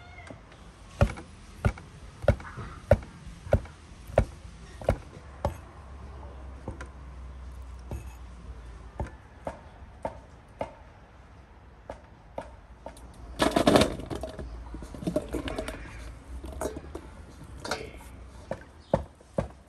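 Cleaver chopping on a wooden cutting board: a steady run of sharp chops, about three every two seconds, then sparser, lighter chops. A brief, louder scraping noise comes about two-thirds of the way through.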